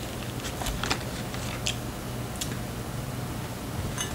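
A few faint, scattered mouth clicks and smacks from someone chewing a soft cream-filled roll cake, over a low steady hum.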